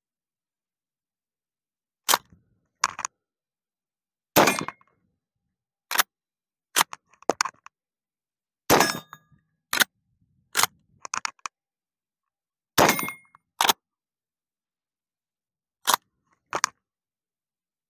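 Winchester 1892 lever-action rifle in .25-20 Winchester being fired repeatedly, a sharp report every couple of seconds. Between the shots come smaller metallic clanks: the lever being worked and bullets ringing off steel targets.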